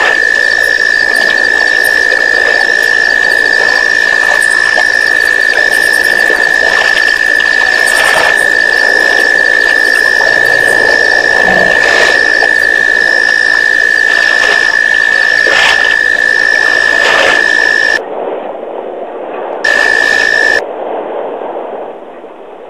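A loud, steady high-pitched whine, with a faint chirp repeating about once a second above it and scattered clicks. Near the end the whine cuts out twice and the sound turns dull and quieter.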